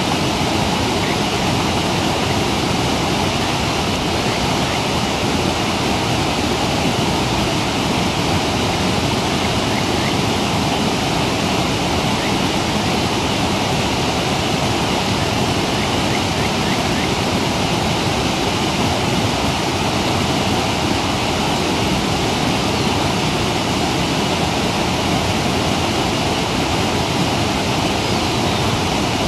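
Steady, unbroken rush of a waterfall and mountain stream.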